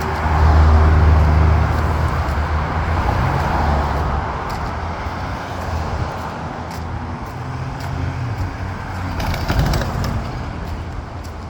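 Road traffic passing close by: a motor vehicle's engine hum, loudest about a second in and fading, over steady traffic noise; another vehicle swells past around eight seconds in.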